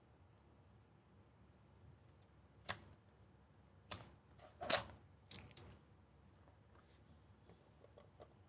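Hard clear plastic case being pried open and handled: several sharp plastic clicks and knocks scattered through the middle seconds.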